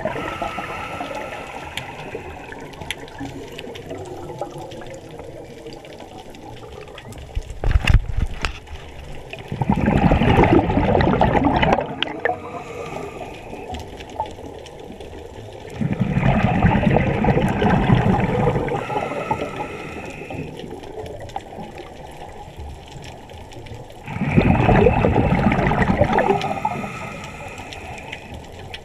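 Scuba regulator breathing underwater: exhaled bubbles rush and gurgle past the microphone in bursts of two to three seconds, three times about seven seconds apart, with a quieter hiss between breaths.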